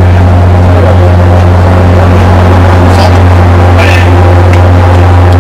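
Steady, loud low hum of a navy ship's machinery running, with a few faint brief sounds about three and four seconds in.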